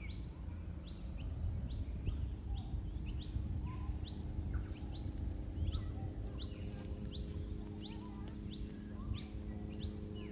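A bird repeating one short, high chirp about twice a second, over a low rumble of wind or distant background noise.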